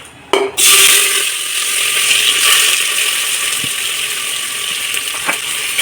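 Onions dropped into hot oil and ghee in a pressure cooker, bursting into loud sizzling about half a second in and frying on steadily, with a couple of light clicks of a spoon.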